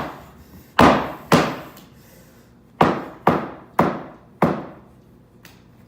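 A golf club striking condiment packets on a hard floor: six hard hits in two quick groups, each ringing briefly as it dies away.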